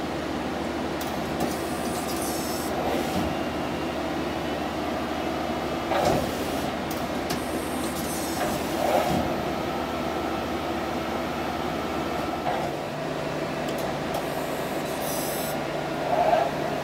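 Steady machine hum of a powered-up Mighty Viper VT-30GL CNC lathe, made up of several steady tones. About twelve and a half seconds in, the lowest part of the hum shifts to a new steady low tone. A few brief, slightly louder swells come through.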